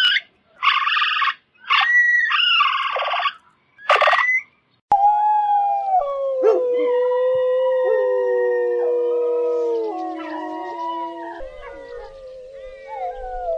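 A few short, high, gliding calls of a coypu, then several dingoes howling together in long, overlapping howls at different pitches that slowly slide and fade a little near the end.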